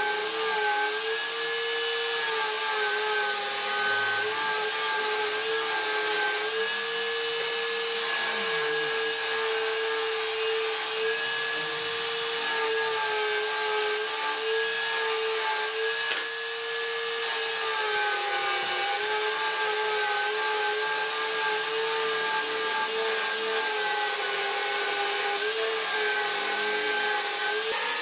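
Table-mounted spindle sander's motor running with a steady whine, its sanding drum rasping against the edge of a curved wooden strip. The pitch sags briefly about two-thirds of the way in, then rises a little near the end.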